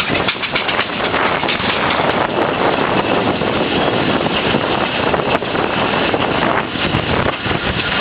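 Vintage steam engine on the move, its running sound mixed with heavy wind noise on the microphone.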